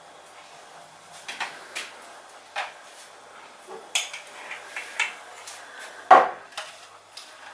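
A knife scraping peanut butter from a jar and spreading it onto rice cakes, with scattered light clicks and scrapes of utensil on jar and plate. A sharper knock about six seconds in is the loudest.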